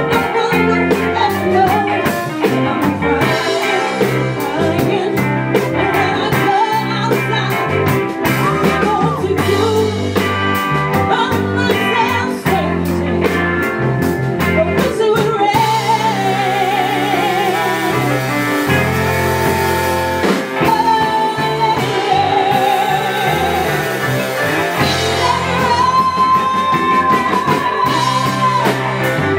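Live R&B band performance: a female singer sings over electric guitar and the band, holding long notes with vibrato in the second half.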